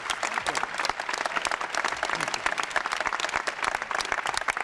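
Outdoor crowd applauding steadily: many hands clapping in a continuous patter.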